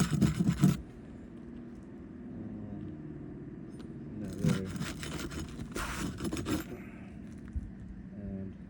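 A metal roofing snake tool scraping against asphalt shingles in three short bursts, the last and longest about a second, as it is worked under a shingle at its nails. A steady low hum runs underneath.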